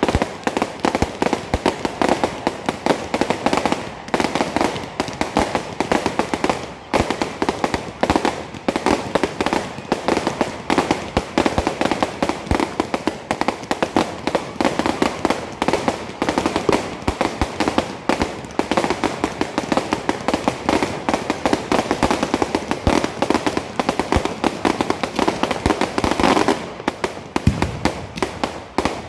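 Fireworks: a dense, continuous barrage of rapid bangs and crackles, many per second, easing off briefly near the end.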